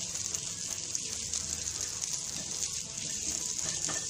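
Dosa cooking on a hot oiled griddle (tawa): a steady sizzle with fine crackling.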